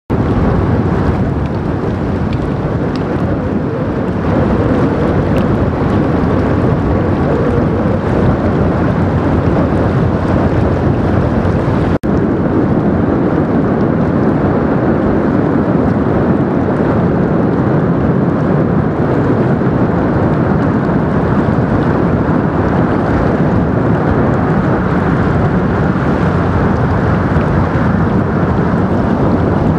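Steady rumble of a passing Rhine inland cargo ship's diesel engine, mixed with wind buffeting the microphone. The sound drops out for an instant about twelve seconds in.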